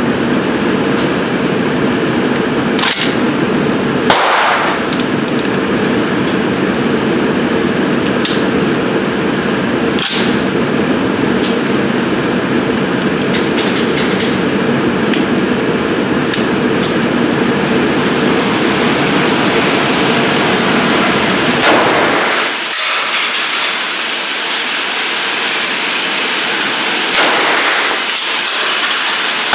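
Indoor shooting range noise: a steady ventilation drone with a handful of sharp gunshot reports ringing out at intervals, the loudest about four seconds in.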